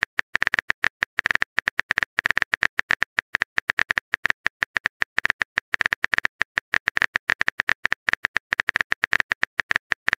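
Phone keyboard typing clicks, a rapid, irregular run of short clicks, several a second, as a text message is typed out.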